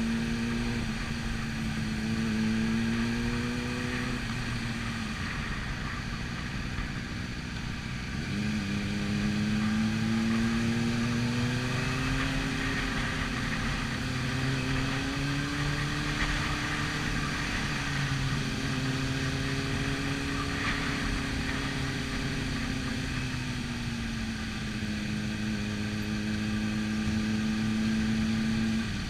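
Sport motorcycle engine heard from on board at a gentle group-riding pace, its pitch rising and falling slowly with the throttle. It sags for a few seconds around the fifth to eighth second as the throttle is eased, then picks up again, and drops at the very end.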